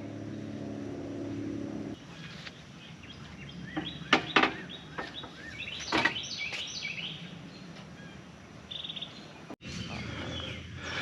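Small birds chirping and calling repeatedly. A steady low hum in the first two seconds stops abruptly.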